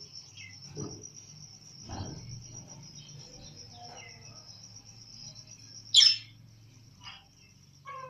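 Crickets chirping in a steady high-pitched trill, with a few soft knocks near the start and one sudden sharp sound about six seconds in.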